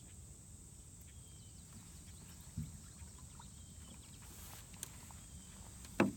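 Quiet outdoor pond background with a steady high insect drone, broken by a soft knock about two and a half seconds in and a sharper, louder knock near the end.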